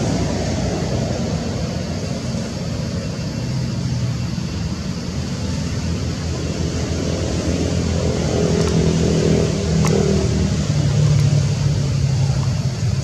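A motor vehicle engine running as a steady low rumble, shifting in pitch about two-thirds of the way through, with one sharp click about ten seconds in.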